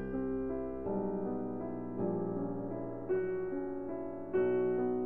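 Background piano music, with a new chord or note group struck about once a second, each ringing on and fading before the next.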